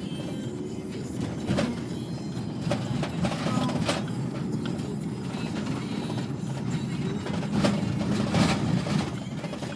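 Road noise inside a moving car's cabin: a steady low rumble, with a few sharp clicks and knocks, the loudest near the end.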